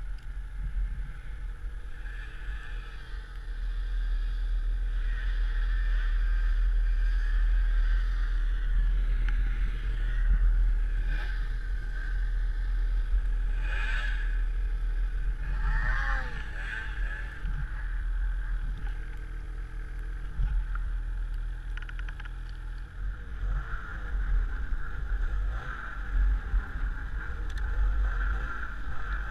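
Snowmobile engine running through deep snow, its pitch rising and falling with the throttle, heard from the rider's helmet with heavy wind rumble on the microphone.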